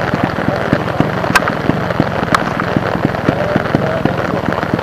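Heavy rain pattering on a close surface, a dense, irregular crackle of drops, with two sharper clicks about a second apart near the middle.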